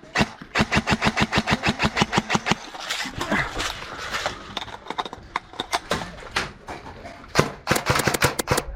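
Airsoft electric gun firing a fast full-auto burst of sharp clicking shots, about ten a second, from about half a second in, followed by scattered single shots and another quick burst near the end.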